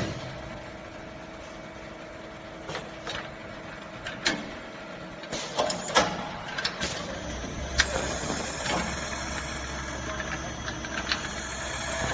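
Automatic brass valve-ball turning machine running: a steady machine hum with a held tone, broken by irregular sharp metallic clicks and knocks as its tooling and workholding move. The knocks come thickest around the middle, and a low rumble rises in the second half.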